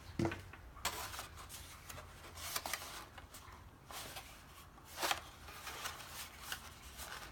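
Paper petals being handled and pressed into place on a paper rose, giving scattered short, faint rustles and crinkles.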